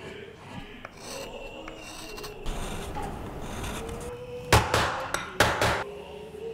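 Hand chisel scraping and paring a carved wooden noh mask, a steady rasping, with two loud strokes about a second apart in the second half.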